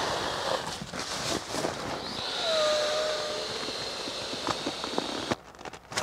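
Inflatable sleeping pad being filled, air hissing steadily through its valve with a faint whistle, stopping suddenly a little over five seconds in.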